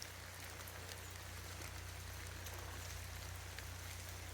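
Freezing rain pattering and ice dripping in iced-over woods, a soft steady hiss with scattered light ticks, over a steady low hum.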